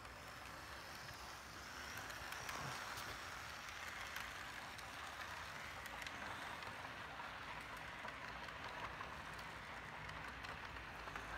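Model freight train rolling past close by: a faint, steady rush of wheels running on the track, growing a little louder about two seconds in, with scattered light clicks.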